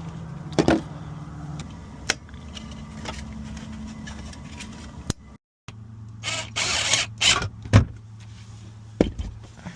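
Steady low hum with scattered sharp clicks and knocks of tools and metal parts being handled, and a short burst of rustling or whirring noise around the middle.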